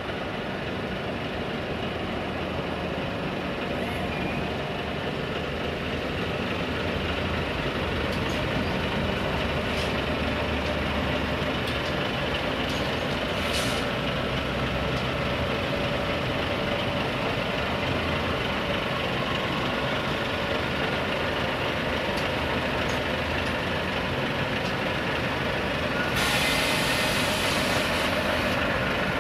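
Volvo FH16 heavy truck's inline-six diesel engine running steadily while manoeuvring. A short hiss of air comes about halfway through, and a louder air-brake hiss lasting a few seconds comes near the end.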